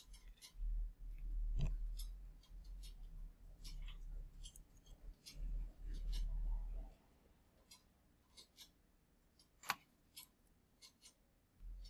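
Faint, irregular clicks of a computer keyboard and mouse in use, one sharper click about ten seconds in, over a low hum that stops about seven seconds in.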